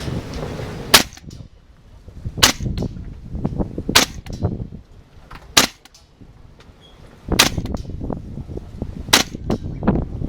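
Gas blowback airsoft rifle fired in single shots, six sharp cracks about one and a half to two seconds apart, some followed by fainter clicks. Strong wind buffets the microphone throughout.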